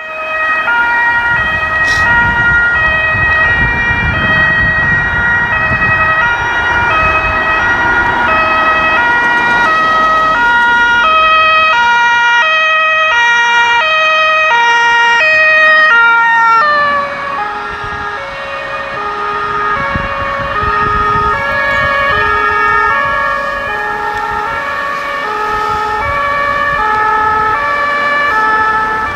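German emergency-vehicle two-tone sirens (Martinshorn) sounding their alternating high-low notes, over a low vehicle rumble. About seventeen seconds in, the whole pitch drops as the vehicle passes.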